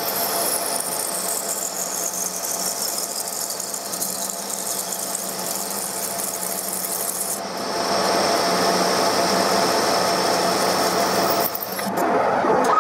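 TOS SN63B lathe running with a high-feed insert cutting a facing pass on a steel wheel hub, the chip and cut noise steady over the machine's running. A high whine falls in pitch over the first few seconds, and the cut grows louder about 8 s in, with a short dip near the end.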